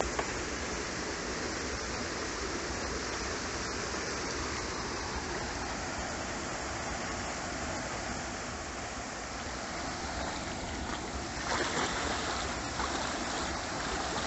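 Shallow creek and small cascade rushing steadily; the rush grows louder and brighter for a couple of seconds near the end.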